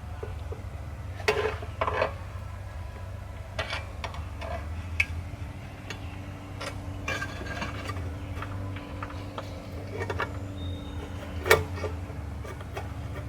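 Scattered metallic clinks and clatters of tools and parts being handled during car work, a sharp one about a second in, another about 2 seconds in and the loudest near the end, over a steady low hum.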